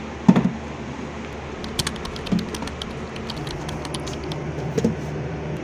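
Picture frames and ornaments being handled and set down on a shelf. A soft knock about a quarter second in is the loudest sound, then a run of quick, light clicks and taps through the middle, with two more soft knocks.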